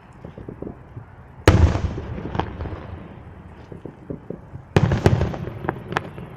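Fireworks going off: two loud booms, about a second and a half in and near five seconds in, each trailing off in a rumble, with scattered smaller crackling pops between them.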